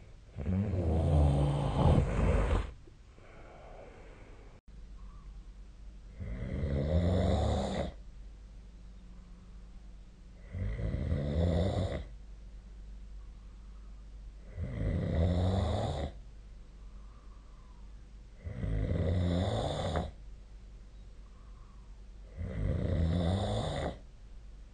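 A sleeping person snoring: six snores coming about every four seconds, each lasting one and a half to two seconds, with a faint steady low hum between them.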